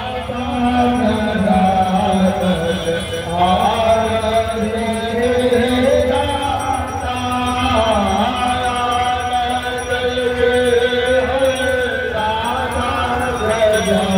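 Devotional chanting sung to music, long held notes that change pitch every few seconds over a steady low drone, amid a crowd.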